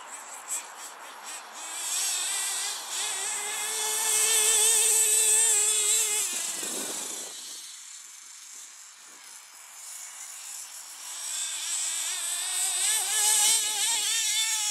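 Hot Bodies Lightning GTX2 RC car's twin .26 nitro engines running at high revs with a high, buzzing whine as it drives across grass. About seven seconds in the pitch falls sharply and the sound drops away for a few seconds, then the revs and loudness build again toward the end.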